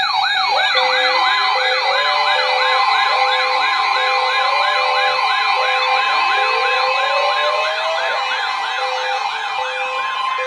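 Several weather alert radios sounding their alarms at once: a fast siren-like warble, about three to four sweeps a second, over steady tones and an on-off beep.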